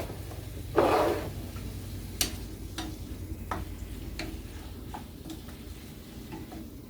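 Chicken pieces frying in olive oil in a pan, with a short surge of sizzle about a second in, then light clicks of a utensil against the pan roughly every half second to second as the chicken is stirred.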